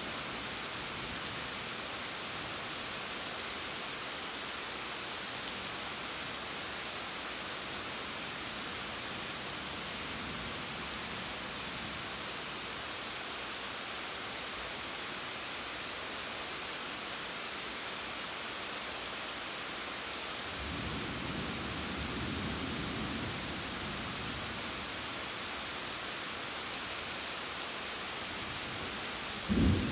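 Steady rain falling as an even hiss. About two-thirds of the way in, a low rumble of thunder rolls for a few seconds, and just before the end there is a short, loud, low thump.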